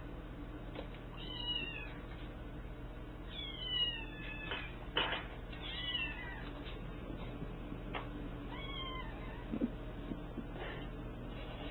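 Cat meowing four times, short high calls a couple of seconds apart, with a few short knocks about five seconds in.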